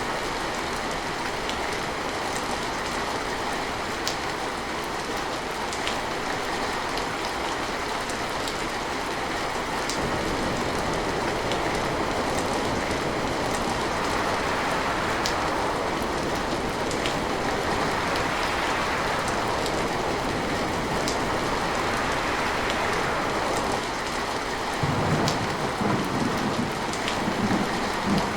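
Steady rain with scattered sharp drop ticks. Near the end a low rumble of thunder sets in and grows louder.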